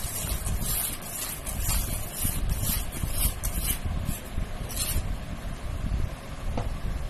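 Whisk stirring cake batter in a bowl: short scraping strokes about twice a second that stop about five seconds in, over a steady low rumble.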